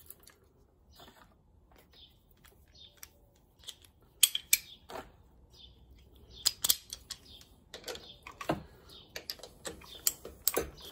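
Socket ratchet working on the AC compressor mounting bolts: irregular metallic clicks and clinks of the ratchet and socket, sparse at first and busier from about four seconds in.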